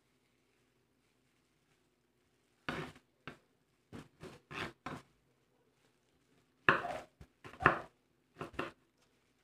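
Knife chopping siling labuyo (bird's eye chilies) on a cutting board: about a dozen uneven strikes in two runs, the first starting about three seconds in.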